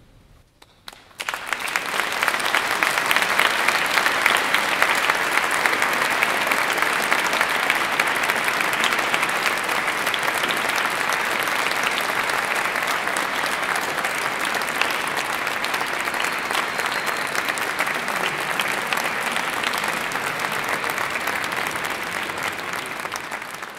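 Audience applauding. After a brief hush, the applause breaks out about a second in and continues steadily.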